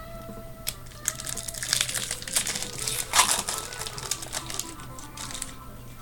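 Card-pack wrapper crinkling and tearing as a pack of 1999 Stadium Club baseball cards is opened: a run of crackles from about a second in until near the end, over quiet background music.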